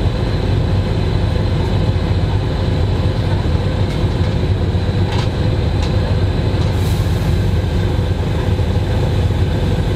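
Semi-truck's diesel engine idling, heard from inside the cab as a steady low rumble with a faint high whine over it, and a couple of faint clicks about five and seven seconds in.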